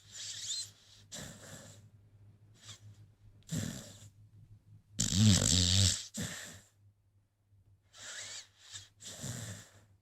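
An American Pit Bull Terrier snoring in its sleep: a string of uneven breaths a second or so apart, with one long, louder snore about halfway through.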